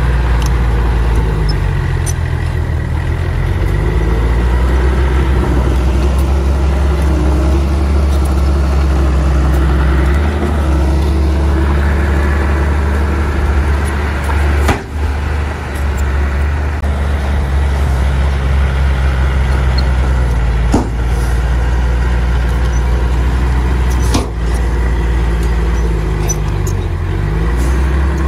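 Heavy diesel engines of bulldozers running under load, the engine note sagging and recovering near the start and again near the end. Three short, sharp clicks come in the second half.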